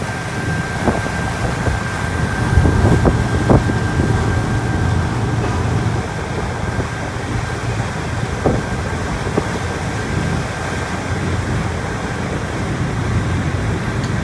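A cruise-ship tender boat's engine running steadily, a low rumble with a thin steady whine above it and a few light knocks, mixed with wind and water noise.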